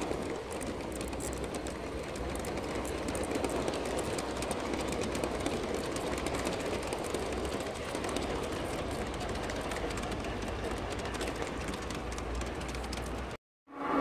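Large-scale (G-scale) model freight train of covered steel wagons rolling past on garden-railway track: a steady rumble of the wheels with a rapid patter of small clicks on the rails. It cuts off abruptly near the end.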